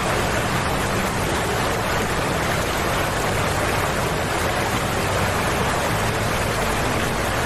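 Floodwater rushing: a swollen, muddy river in flood making a steady, loud rush.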